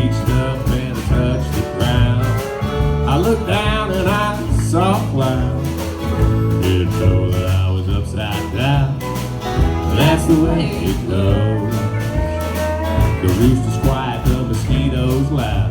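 A country band playing the instrumental intro of a song: strummed and plucked guitar over a steady bass and beat, with a wavering lead melody line above.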